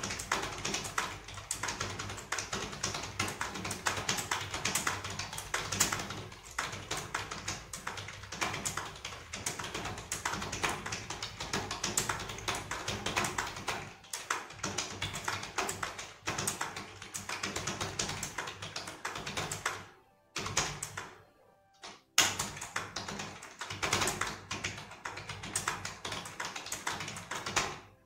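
Fast continuous touch-typing on a Dell KM3322W wireless membrane keyboard, a quick run of soft key clacks at about 75 words per minute. The keystrokes break off briefly twice a little after 20 seconds in.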